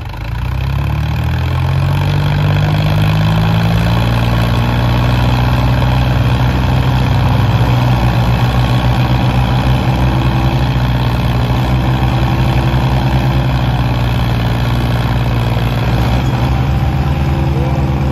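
Tractor diesel engines revved to full throttle and pulling hard against each other in a tug-of-war; the note climbs over the first second or two, then holds high and steady under heavy load.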